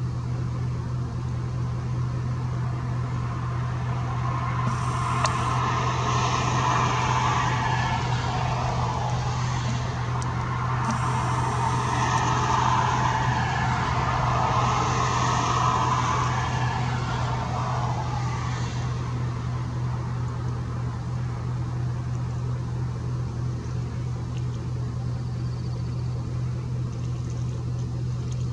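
Motor vehicle noise: a steady low engine hum throughout, with a rushing road noise that builds from about four seconds in and fades out a little past the middle, as a vehicle passes.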